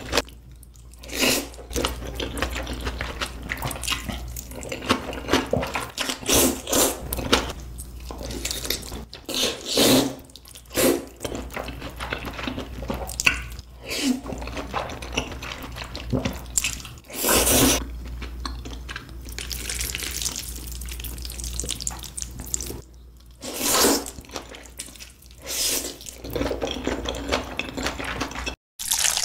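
Slurping of black bean sauce noodles: repeated short, loud slurps every few seconds, with wet chewing and mouth sounds in between.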